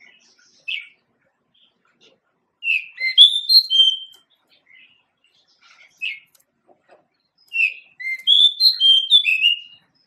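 Male pied bushchat (Saxicola caprata) singing: two short phrases of quick, sweet whistled notes about five seconds apart, each preceded by a single short note.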